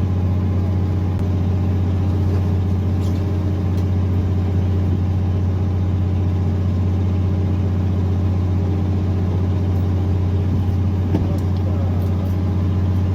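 Fishing boat's engine running with a steady low drone, with a few faint clicks over it.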